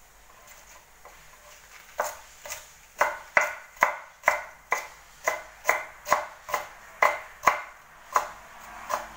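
Repeated sharp strikes on a kitchen cutting board, about two a second, starting about two seconds in.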